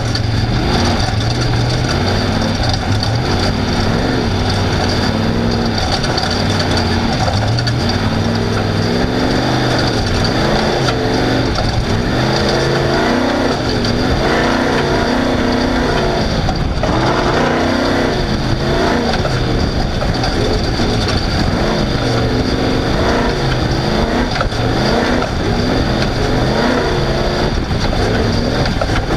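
Off-road race vehicle's engine running hard, its revs rising and falling again and again as it accelerates and backs off, over a constant loud rush of noise from the moving vehicle.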